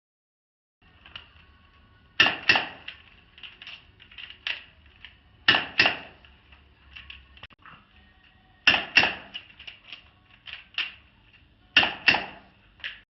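Revolver being handled: sharp metallic clicks and snaps, four loud pairs about three seconds apart with lighter clicks in between.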